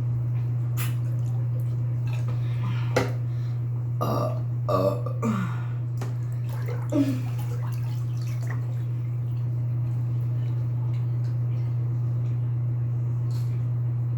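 A man burping: a run of belches with a falling pitch from about four to five and a half seconds in, and a short one near seven seconds, over a steady low hum.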